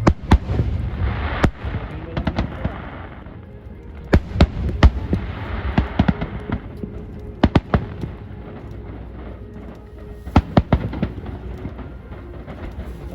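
Aerial fireworks going off: clusters of sharp bangs, several a second, with crackling after some bursts and a low rumble throughout. There are quieter gaps of a second or two between the volleys.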